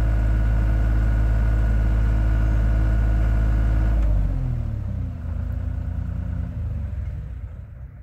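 Deere 240 skid steer's three-cylinder diesel engine running steadily at raised revs, then throttled back about four seconds in, the pitch sliding down to a quieter, lower idle that fades near the end.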